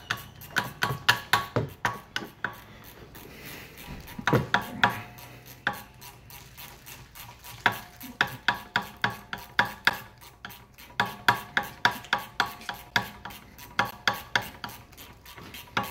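Open-end wrench clinking on a Brembo brake caliper's bolt as it is tightened in quick short strokes: runs of sharp metallic clicks, about three a second, with short pauses between runs.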